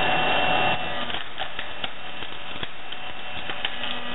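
Vertical hydraulic log splitter driving its wedge down through an upright log. The machine runs loudly at first and drops about three-quarters of a second in. The wood then cracks and creaks with a run of sharp snaps as it splits.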